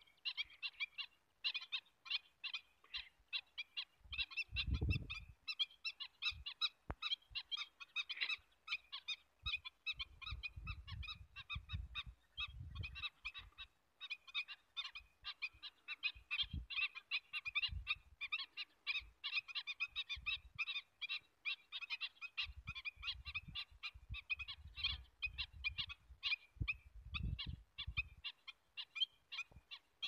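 A flock of waterbirds calling without pause, a dense stream of short overlapping calls, many a second.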